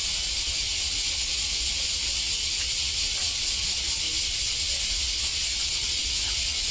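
A loud, steady high hiss with a low rumble underneath and a few faint ticks.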